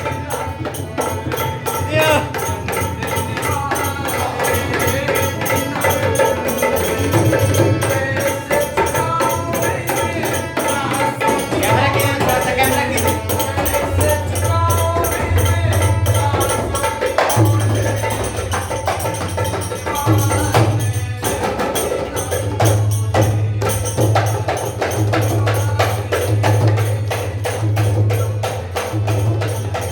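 Music with rhythmic percussion and a pulsing bass beat, a wavering melody line over it, louder and more regular in the beat from about the middle on.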